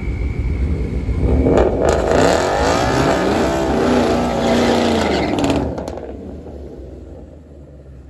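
An engine revving up, holding high, and falling back, then cutting off abruptly about six seconds in, leaving a quieter low rumble.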